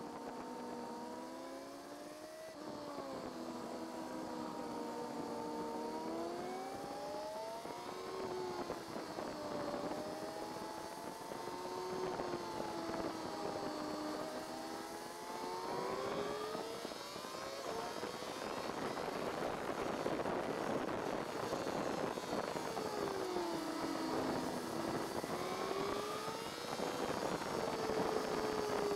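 Kawasaki ZZR1400's inline-four engine at track speed, heard from the rider's seat: the revs rise and fall again and again through corners and gear changes, climbing hard about sixteen seconds in. A rushing noise grows louder over the second half as the speed builds.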